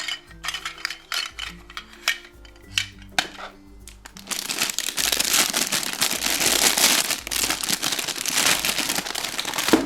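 Background music with a few light clicks of plastic toy food dropped into a toy saucepan. About four seconds in, loud rustling and crinkling of plastic wrapping starts and continues to the end.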